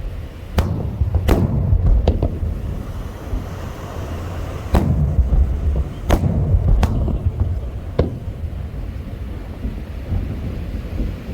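Aerial firework shells bursting: about seven sharp bangs at irregular intervals, with a low rumble between them.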